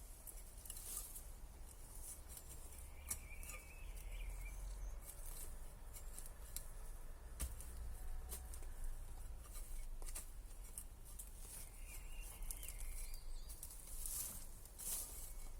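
Wood campfire crackling with scattered sharp pops, while a bird sings a short chirping phrase twice, about three seconds in and again near the end.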